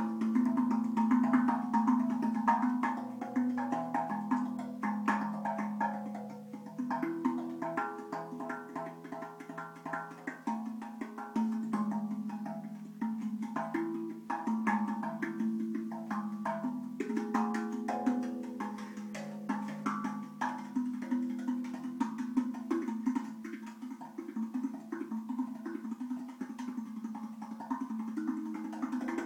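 TerraTonz steel handpan played with the bare fingers and hands: quick, rhythmic strikes on its tuned tone fields, each note ringing on, with the pitches moving around as different fields are struck.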